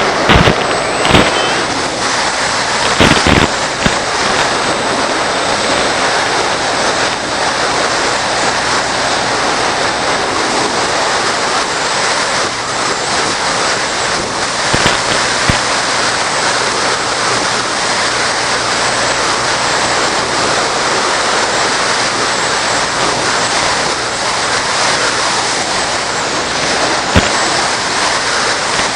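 Steady, loud rushing noise on the sound track of an FPV model-airplane recording, with a few brief crackles near the start and near the end.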